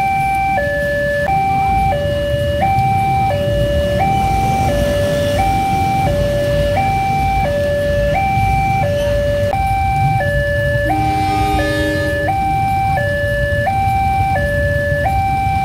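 Railway level-crossing alarm warning of an approaching train: an electronic two-tone signal alternating steadily between a higher and a lower note, each held about 0.7 s. A lower, separate tone joins for about a second and a half around eleven seconds in.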